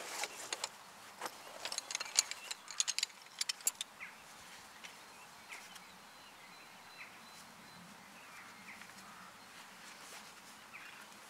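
Metal frame poles of a compact folding camp chair clicking and rattling together as the chair is unpacked and assembled, a quick run of sharp clicks in the first few seconds, then quieter handling of the seat fabric with faint birdsong in the background.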